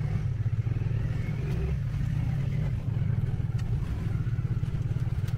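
Engine of a small open-backed vehicle running with a steady low rumble while driving, heard by a rider in the back, with a faint higher sound rising briefly about a second in.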